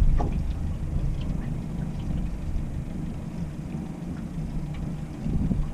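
Wind rumbling on the microphone, with water lapping against the boat's hull.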